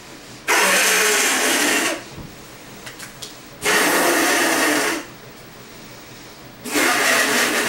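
Three hard blasts of breath blown through the nose into a latex condom stretched over the face, trying to inflate it. Each blast lasts about a second and a half, starting about half a second, three and a half seconds and nearly seven seconds in.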